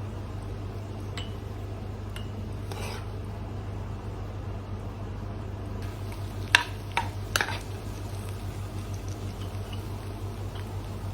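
Kitchenware clinking: three sharp clinks about six and a half to seven and a half seconds in, the first the loudest, over a steady low hum.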